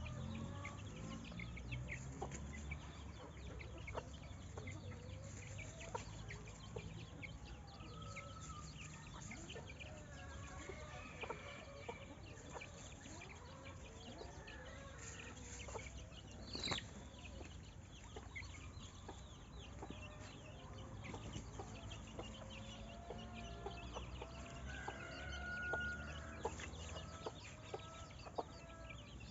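Chickens clucking with short, scattered calls over a steady low rumble, with one sharp high-pitched call a little past halfway.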